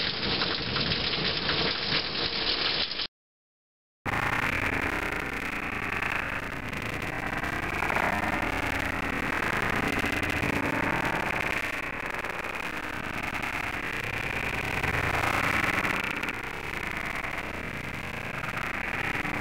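Heavy rain falling in a thunderstorm, a steady dense hiss, broken about three seconds in by roughly a second of dead silence where the recording cuts.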